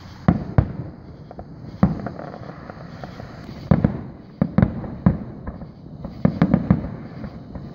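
Aerial fireworks shells bursting: irregular sharp bangs, several single ones spaced about a second apart, then a quick cluster of bangs near the end.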